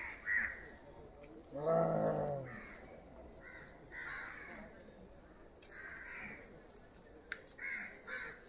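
Birds calling outdoors: a string of short calls repeating every second or so, with one louder, longer, lower call about two seconds in.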